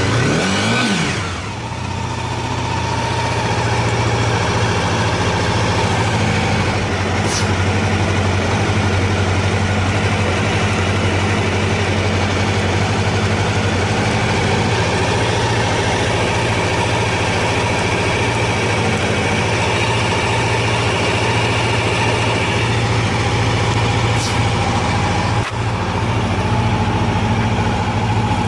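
Honda CBR250R MC19 motorcycle's 250 cc inline-four engine settling from a brief rev in the first second or two, then idling steadily with no abnormal noises.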